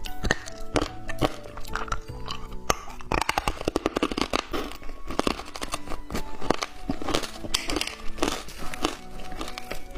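Hard candy being crunched and chewed close to the microphone, with a quick run of crunches about three to four and a half seconds in, over background music.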